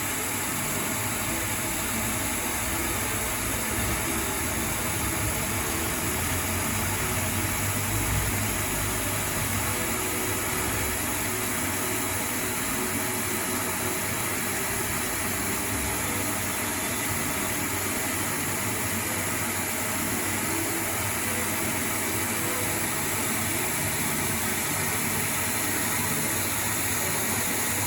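ProtoTrak CNC lathe taking a light finishing pass on a 4140 steel shaft: the steady run of the spindle and feed under a constant hiss from the coolant spray mister.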